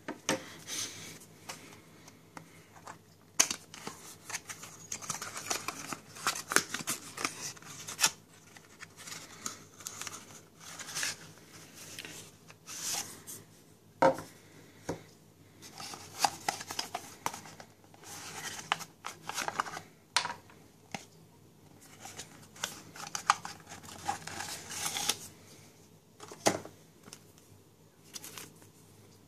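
Hands handling a power bank's cardboard box and its paper packaging: card sliding and scraping, rustling, and irregular short clicks and taps, the sharpest about three and a half seconds in, about halfway, and near the end.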